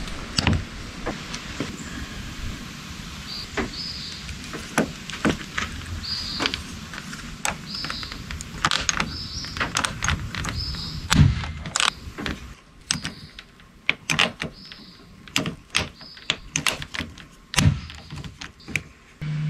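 Irregular clicks, taps and knocks of a plastic trim piece being handled and pressed back into place on a jet ski. A faint short high chirp repeats about once a second through most of it.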